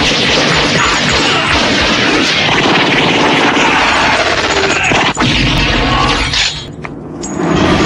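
Dense, continuous gunfire from submachine guns and a shotgun, mixed with crashes and a film score underneath. There is one sharp shot at about five seconds, and the din drops away about six and a half seconds in.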